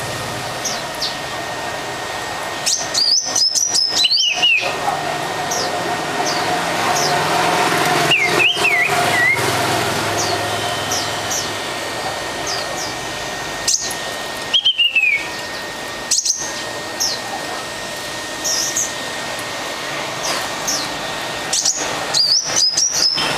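Caged songbird calling: clusters of sharp, high whistled notes, some sliding down in pitch, a few seconds in, near the middle and near the end, with a short warbled phrase in between, over a steady background hiss.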